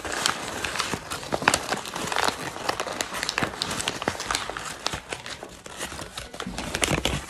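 A crumpled sheet of paper being handled and opened out by hand: dense, irregular crinkling and crackling that stops abruptly at the end.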